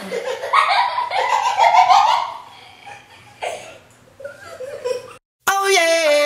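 Young children laughing and giggling, loudest over the first two seconds or so, then dying down. Near the end the sound cuts out briefly and music begins.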